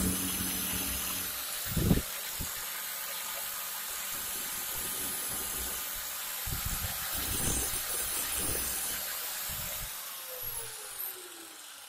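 Angle grinder cutting into a steel ball bearing: a steady, hissing grind with a few dull knocks, fading near the end with a tone that falls in pitch.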